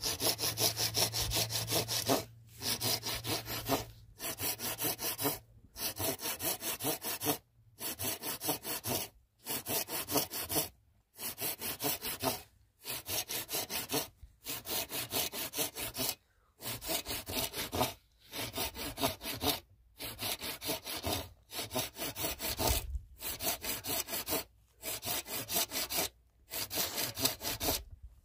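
Wood being cut with a hand saw: runs of quick back-and-forth strokes, each run about a second and a half long, broken by short pauses, over and over.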